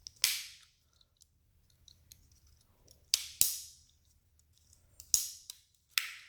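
Butterfly knife being flipped open and shut, its metal handles clacking together: five sharp metallic clacks with a short ring, one just after the start, two close together about three seconds in, then one about five seconds in and one near the end.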